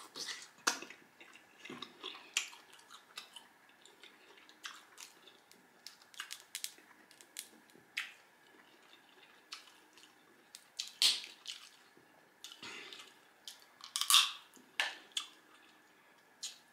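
Close-miked eating sounds: fingers pulling apart Dungeness crab shell and picking out the meat, with wet clicks, small cracks and lip smacks. The sharpest cracks come about 11 and 14 seconds in.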